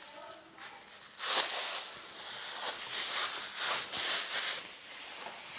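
Thin plastic film crinkling and rustling in several short bursts as it is peeled off a sheet of butter pastry.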